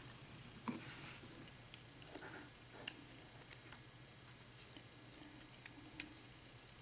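Faint small metal clicks and light scraping from handling a disassembled pin-tumbler cylinder lock's parts, with a few sharp ticks spread through.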